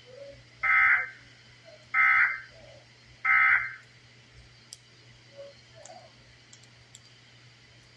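Emergency Alert System end-of-message (EOM) signal: three short bursts of SAME digital data, each under half a second and about a second apart, marking the end of the alert broadcast.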